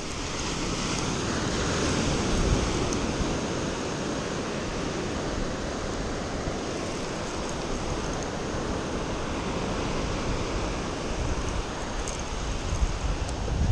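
Surf breaking and washing up a sand beach, swelling about two seconds in. Wind buffets the microphone in low gusts, more so near the end.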